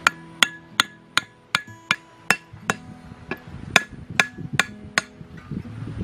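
Machete striking a thin bamboo stake, tapping it into the ground: a regular series of about a dozen sharp metallic taps, two or three a second, each with a brief ring. The taps give way to softer scuffing near the end.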